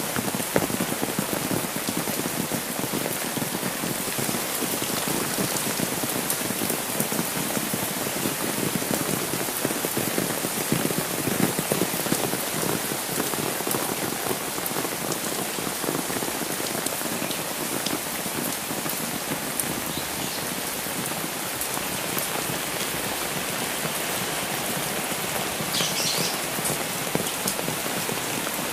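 Steady rain falling on a wet village road, with dense drops tapping on an umbrella held overhead. Near the end there is a brief high-pitched sound.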